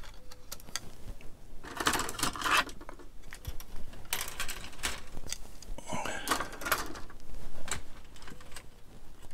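Plastic model-kit sprues being handled and sorted through: irregular light clicks, clatters and scrapes of plastic frames knocking together.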